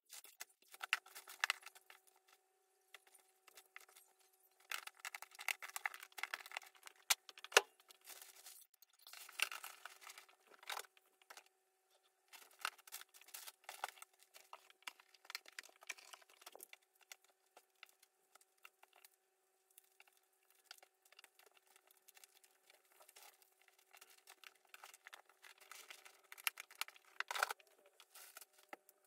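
Objects being handled close by: irregular bursts of rustling and light clicks, over a faint steady hum.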